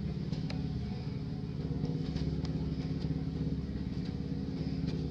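An engine running steadily at an even pitch, a low unbroken hum, with a few faint light ticks above it.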